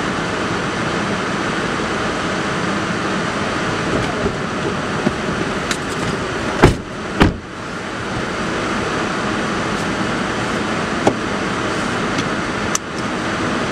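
Steady rushing noise inside a car cabin, broken by two heavy thumps about seven seconds in, half a second apart: car doors being shut as the occupants get in. A few light clicks and knocks of people settling into the seats.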